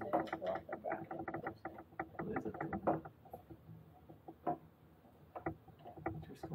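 Rapid small clicks and scrapes of screwdrivers working tiny screws in the plastic shell of an electric unicycle. They come thick and fast for about three seconds, then thin out to a few scattered clicks.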